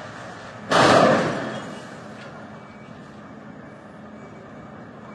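A single sudden loud slam or thud about a second in, dying away over about a second, over a steady background hum.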